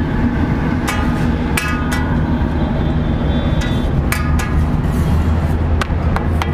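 Metal utensils clanking, several sharp clinks that each ring briefly, over a steady low hum.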